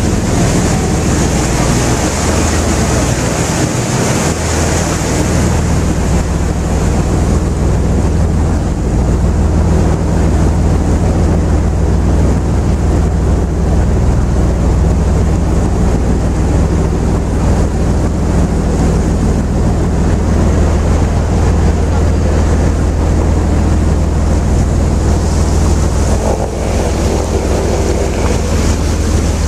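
River tour motor ship's diesel engine running steadily with a low hum, water rushing along the hull and wind buffeting the microphone.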